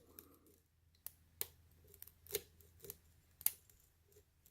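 Lock pick working the pins of a lock under light tension: a handful of sharp, irregularly spaced metallic clicks with fainter ticks between them.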